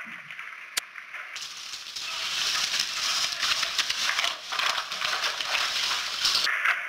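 An airsoft sniper rifle fires once with a short, sharp snap, followed by several seconds of dense rattling, crackling noise.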